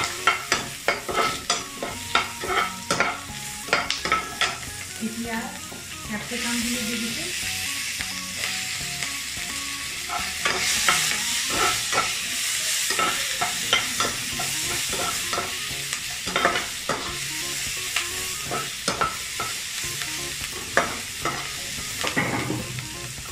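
A slotted spatula scrapes and knocks in a nonstick kadai while onion, garlic and green capsicum fry in hot oil over high flame. Quick knocks come first; about six seconds in the sizzle swells and holds, with more spatula strokes through it.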